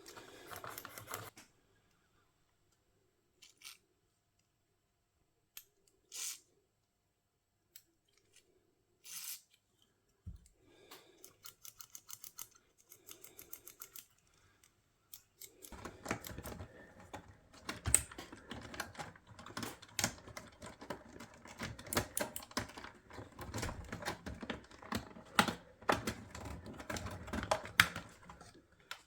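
Hand work on a boombox's plastic and metal parts: scattered clicks and taps, then from about halfway through a dense, irregular run of clicking and scraping.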